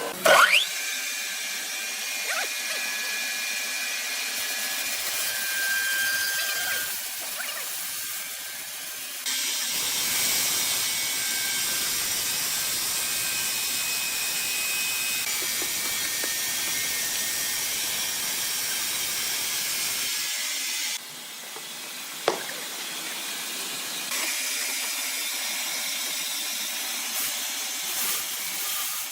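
Sawmill saw running and cutting wood: a steady high, hissing machine noise with some whining tones that changes abruptly twice. A loud sharp knock about half a second in, and another click near the two-thirds mark.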